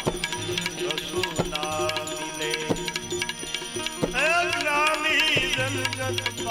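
Gujarati devotional bhajan music: percussion strokes over a steady sustained drone. About four seconds in, a wavering, gliding melodic line comes in, most likely the singer's voice.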